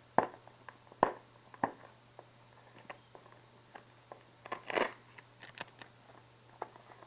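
A cardboard phone box being handled and pried open: a few sharp taps and clicks about half a second apart early on, then a short scraping rustle with more clicks about five seconds in as the lid slides off.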